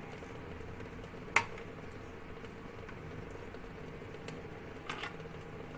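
Quiet room tone with a steady hum, broken by one sharp click about a second and a half in and a softer click near the end.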